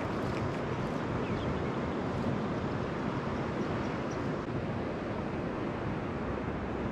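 Ocean surf washing onto a beach, a steady rushing wash of waves.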